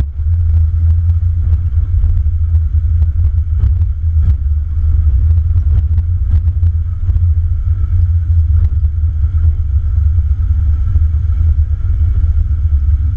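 A 4x4's engine running at low speed over a rough dirt trail: a steady low rumble with frequent short knocks and rattles as the vehicle jolts over the ground.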